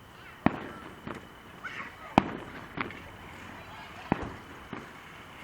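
A fireworks display going off: about six sharp bangs at uneven spacing. The loudest come about half a second and two seconds in.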